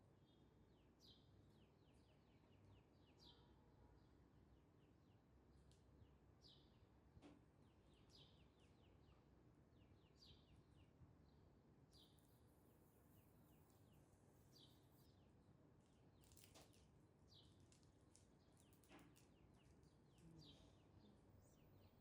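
Near silence: faint background hiss with short, high bird chirps repeating about once a second.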